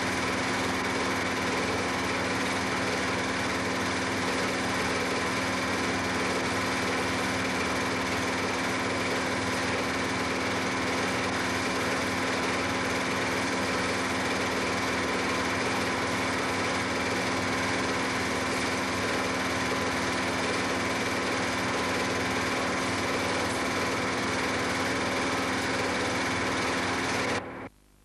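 A small motor running steadily, an even hum with a constant whine, which cuts off abruptly near the end.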